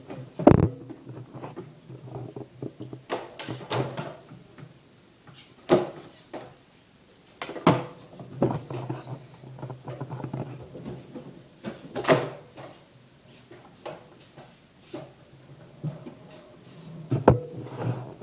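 Skateboard on a concrete garage floor: the urethane wheels roll with a low rumble, broken several times by sharp clacks and slaps as the board pops, lands and hits the floor.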